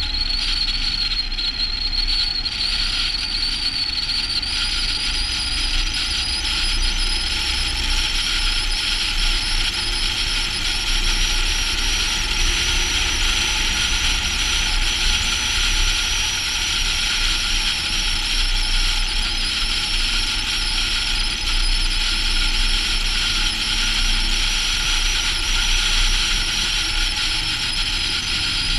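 Volvo FH16 truck with its 16-litre straight-six cruising on a snow-covered road: a steady high hiss of road and air noise with a high whine above it that rises slightly a few seconds in, over a low engine drone.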